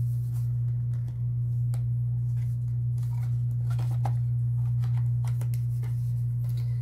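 A cardboard smartphone box being opened and the phone taken out: scattered light clicks and scrapes of handling, over a loud, steady low hum.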